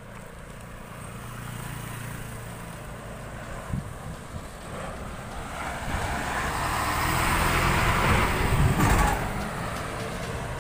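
Road traffic: a state transport bus drives past close by, its engine rumble and tyre noise swelling to a peak about eight to nine seconds in and then fading, with motorcycles nearby. A brief knock a little under four seconds in.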